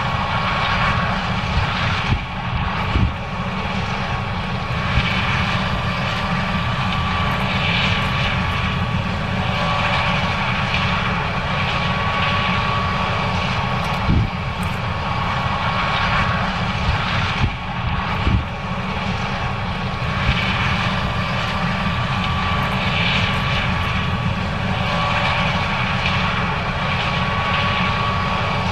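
John Deere 9610 combine's six-cylinder diesel engine and threshing machinery running steadily while harvesting corn, with a constant whine and a few short knocks.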